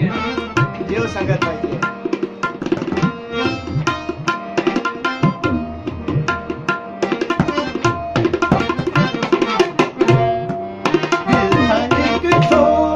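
Tabla played in a fast run of rapid strikes, over a harmonium holding steady notes underneath: the instrumental accompaniment of a ghazal.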